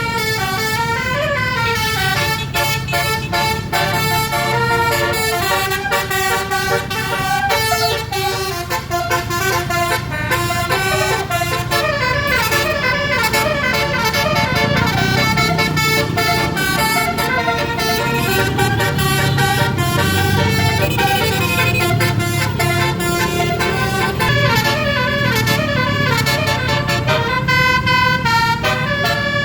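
Bus basuri telolet horn playing a quick tune of short stepped notes, with the bus engine running underneath.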